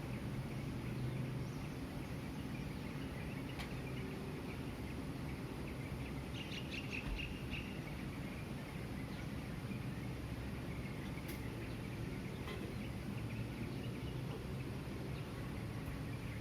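Pre-dawn city ambience: a steady low hum of distant traffic, with small birds chirping now and then and a brief cluster of chirps about six seconds in.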